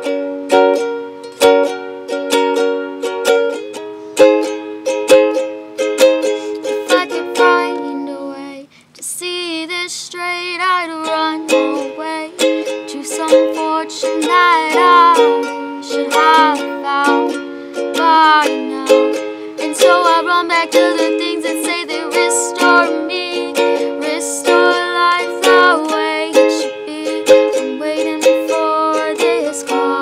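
Ukulele strummed in steady chords, breaking off briefly about nine seconds in. After the break a voice sings a wavering melody over the strumming.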